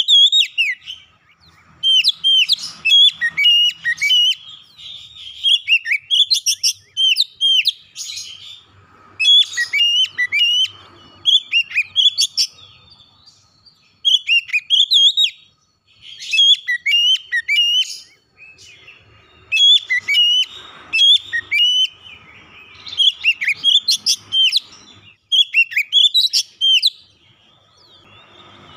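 Male oriental magpie-robin (kacer) singing: a run of short phrases of clear, sweet whistles and quick trills, one every two seconds or so, with brief pauses between them.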